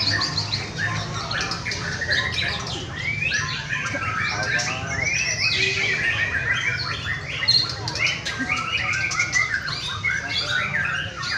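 Many caged songbirds singing at once: a dense, overlapping chorus of chirps, trills and whistles with no pause, over a steady low hum.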